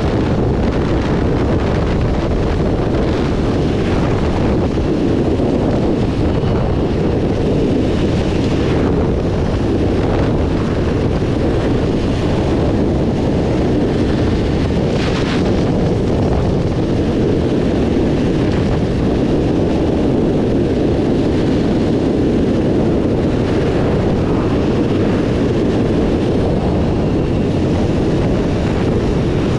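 Honda Rebel 300 single-cylinder motorcycle cruising at road speed: steady wind rushing over the microphone, with engine and road noise beneath it.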